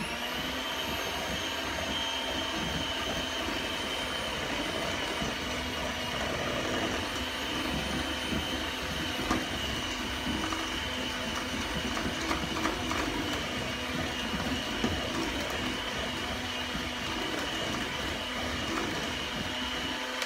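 Electric hand mixer running steadily at speed, its beaters whipping egg yolks and powdered sweetener in a stainless steel bowl. The motor whines up to speed at the start, with occasional clicks of the beaters against the bowl.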